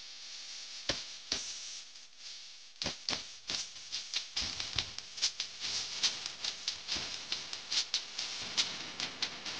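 Light crisp clicks and rustles of stiff paper flowers being handled and pressed onto a cardboard base, two sharp clicks about a second in, then irregular taps a few times a second from about three seconds on, over a steady hiss.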